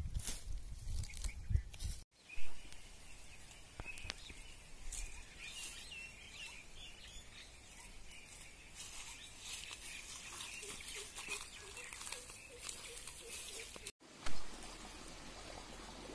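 Outdoor ambience of small birds chirping faintly, with rustling and handling noise close to the microphone in the first two seconds. Two short sharp knocks, one about two seconds in and one near the end, are the loudest sounds.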